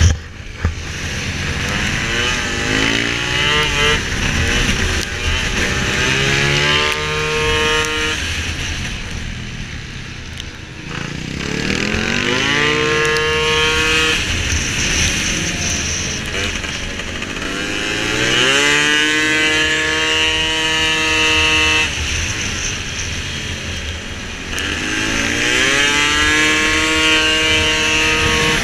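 Piaggio SKR two-stroke racing scooter engine at full throttle, pulling hard four times. Each time the pitch climbs and then holds steady at a high note, and it falls away in between.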